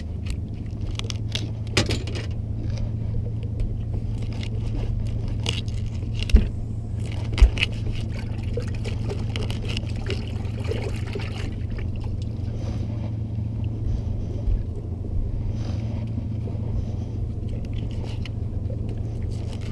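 Knife cutting a fresh bunker into bait chunks on a wooden cutting board: repeated short scrapes and taps of the blade on the board, with two heavier thumps about six and seven seconds in, over a steady low hum.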